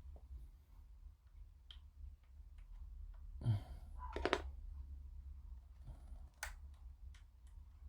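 Small plastic model parts and tools being handled on a workbench: scattered light clicks and taps, a soft knock about three and a half seconds in, and a quick cluster of clicks just after four seconds, over a low steady hum.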